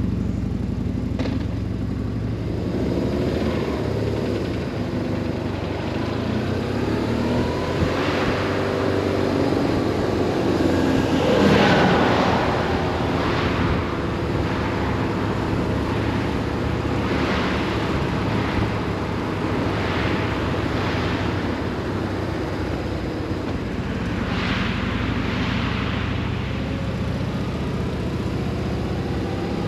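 BMW R 1150 RS's boxer twin running at a steady road speed under constant wind noise, with several brief louder whooshes, the strongest about twelve seconds in.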